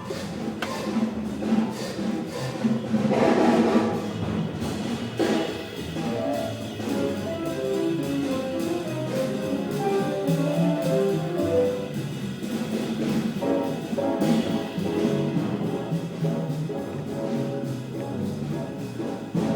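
Jazz piano trio playing: piano, double bass and drums, reaching its loudest about three seconds in.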